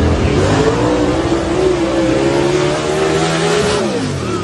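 Race car engine at full throttle, its pitch climbing at the start, holding high, then dropping steeply near the end.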